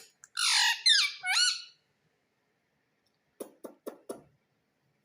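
Pet parrot giving a harsh squawk followed by a couple of downward-gliding calls. Later come four short, quick calls in a row.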